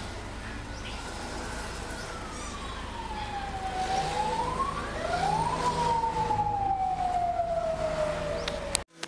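A siren wailing, its pitch sliding slowly down, back up, then down again, over a steady low engine hum. The sound cuts off suddenly near the end.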